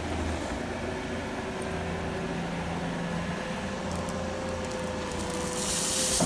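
Case TR320 compact track loader's diesel engine running steadily with a held hum. Near the end, gravel pours out of its tipped bucket into the trench with a rushing, rattling hiss.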